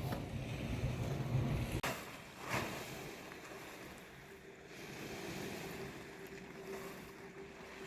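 Wind rumbling on the microphone for about two seconds, cutting off abruptly, followed by two brief knocks and then quieter seaside ambience with a faint steady hum.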